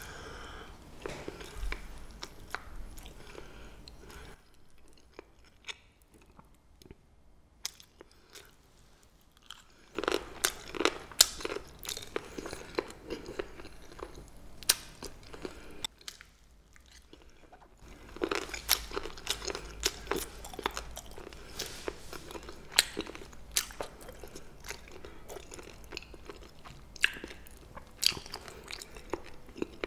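Close-miked chewing of crisp pa-ganghoe (rolls of blanched green onion): crunchy bites and chewing in three bouts, pausing about 4 seconds in and again about 16 seconds in.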